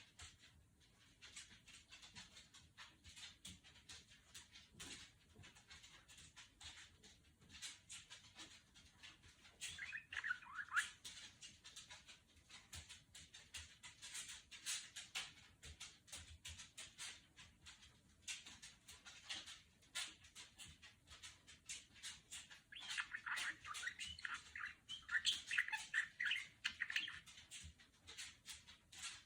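Budgerigar chattering: a run of rapid soft clicks and ticks, with louder bursts of warbling chirps about ten seconds in and again in the last third.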